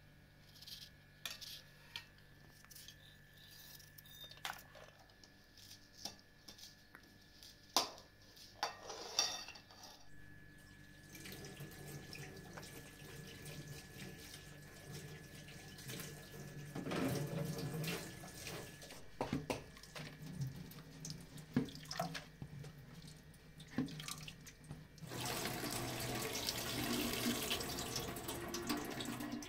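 Water running from a tap into a plastic colander as food is rinsed by hand, loudest and steadiest over the last four seconds or so. Before it, scattered light clicks and knocks of kitchen handling.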